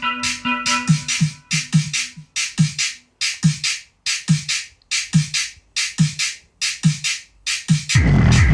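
Electronic dance music played through a homemade subwoofer: a drum-machine beat of kicks that drop in pitch, with sharp hi-hats, settling to about one kick every 0.8 s. Near the end a heavy, bass-laden full section comes in.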